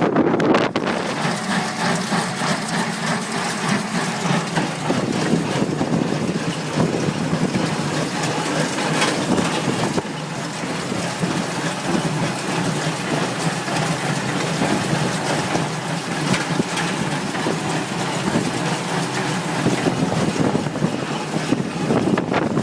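Farm tractor engine running steadily in the hay field, with wind buffeting the microphone.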